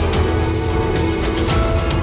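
Background music with held tones over a steady beat about twice a second.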